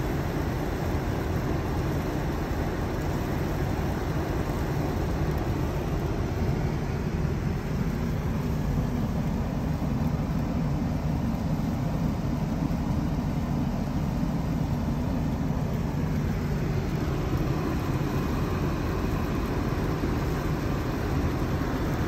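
Steady low rumbling noise inside a car with its engine running, with no distinct strokes or events.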